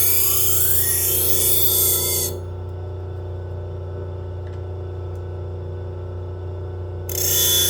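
Kitchen knife blade being ground on the coarse 180-grit wheel of a motorised multi-wheel knife sharpener: a loud, hissing grind that stops about two seconds in and starts again near the end, as the blade is lifted off and passed again. The sharpener's motor hums steadily underneath.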